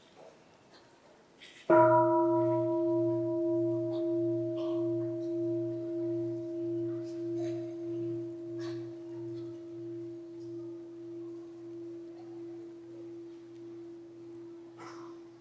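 A Buddhist bowl bell struck once about two seconds in, ringing on with several steady tones and a slow, pulsing waver as it fades away.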